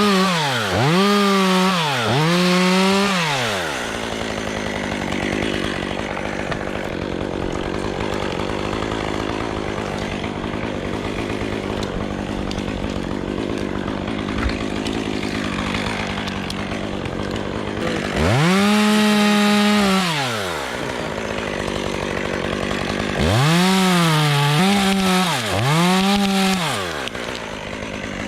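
Two-stroke chainsaw revved up hard in bursts, twice near the start, once in the middle and two or three times near the end, and dropping back to a steady idle between, as in cutting limbs.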